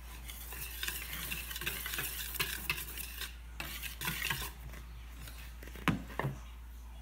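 Wire whisk stirring dry flour in a bowl: a scratchy swishing of the wires through the powder that dies down after about four seconds, followed by two sharp knocks near the end.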